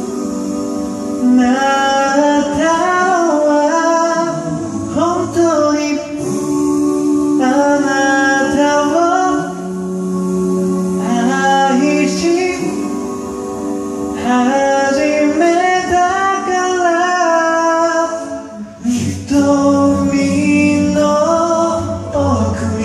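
Male a cappella vocal group singing a slow Japanese ballad in close harmony, voices only: a lead and harmony parts over a low sung bass line, with a brief drop about three quarters of the way through.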